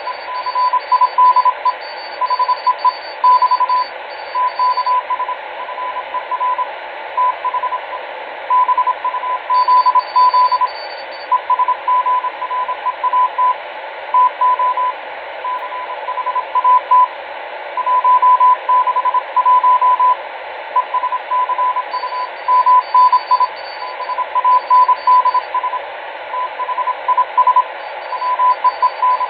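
Morse code received over a radio: a steady mid-pitched tone keyed on and off in dots and dashes over constant receiver hiss. A fainter, higher-pitched second Morse signal comes and goes several times.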